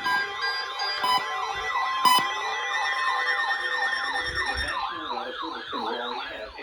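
Several weather alert radios going off together: electronic siren alarms warbling rapidly, over beeping and a steady alert tone that stops about two thirds of the way in. They sound for a severe thunderstorm warning.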